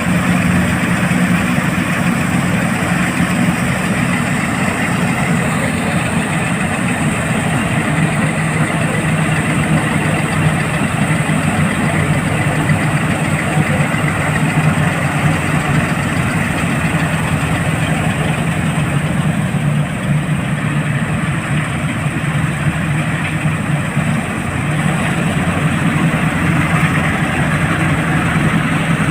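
Preet 849 combine harvester's diesel engine running steadily with a low hum. Its pitch drops slightly about eight seconds in and rises again near the end.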